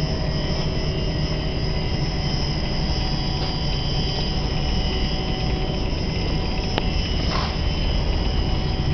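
ALCOLOR PTA 300 Auto protective-tape application machine running, its motors and rollers giving a steady hum with several high, steady whining tones. A short swish comes about seven seconds in.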